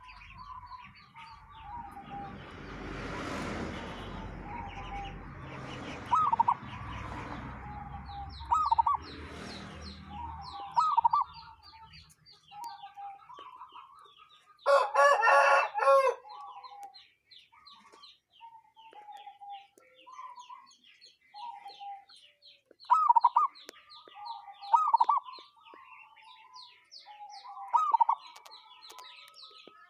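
Zebra dove (perkutut) cooing in short repeated phrases a few seconds apart, a voice that is called strange for the breed. About halfway through a rooster crows once, louder than the dove. Small birds chirp faintly throughout, and a rushing noise fills the first third.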